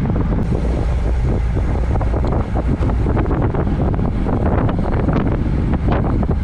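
Strong wind buffeting the microphone while riding, a loud, steady rumbling rush.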